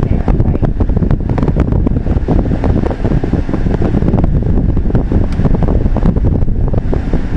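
Car driving along, heard from inside the cabin: a steady low rumble of road and engine noise with irregular buffeting on the microphone.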